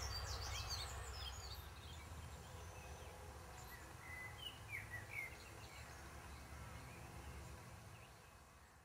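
Birds chirping and trilling over a low rumble. The rumble weakens after a few seconds, and the whole sound fades out near the end.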